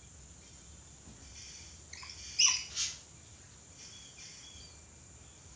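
Red lory giving two short, loud, harsh screeches in quick succession about halfway through, followed by a few faint chirps.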